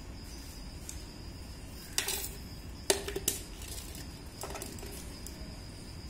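A plastic bucket knocking and scraping on stone paving as a kitten pushes it about: a few sharp knocks about two, three and four and a half seconds in, the loudest near three seconds. A steady high insect chirring runs behind.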